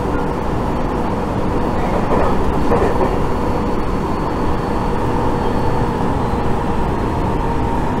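Tobu Tojo Line electric commuter train running at speed, heard from inside the passenger car: a steady rumble of wheels on rails with a faint steady whine over it.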